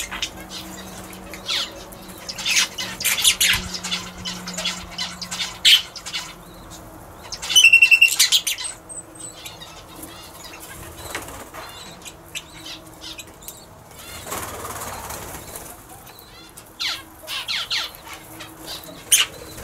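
Red-rumped parrots giving short high chirps among wing flutters and rustling, with a loud rapid run of calls about eight seconds in.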